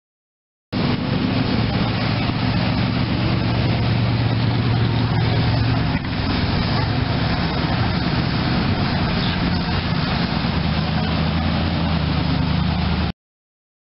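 Engine of an old-style hot rod running low and steady as the car drives slowly past, with a brief dip about six seconds in.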